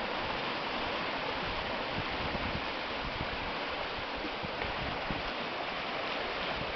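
Seawater rushing and swirling along a wooden harbour quay and around its tyre fenders: a steady rush of fast current as a small tsunami surge floods into the harbour.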